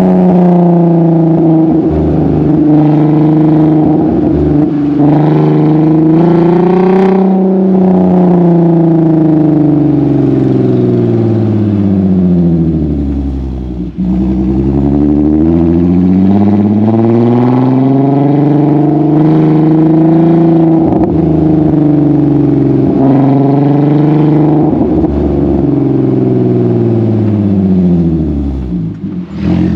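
Car's new aftermarket exhaust heard right at its quad tailpipes while driving, with a freshly swapped muffler. The engine note climbs slowly and falls away twice as the car accelerates and eases off, with a sharp crack about seven seconds in.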